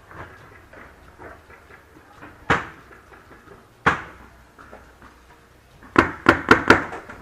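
Paintball fire: two single sharp cracks about a second and a half apart, then a fast burst of four cracks about six seconds in. The cracks are paintball shots and paintballs smacking hard into cover.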